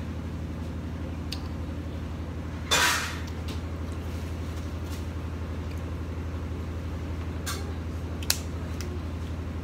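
Snow crab leg shells cracking sharply twice near the end as they are snapped apart by hand, over a steady low hum. A brief loud rustle about three seconds in.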